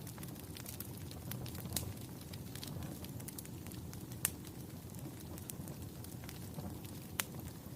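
Fire crackling: a steady low rush of burning under frequent small snaps and pops, with a few sharper, louder pops, the strongest about four seconds in and another near seven seconds.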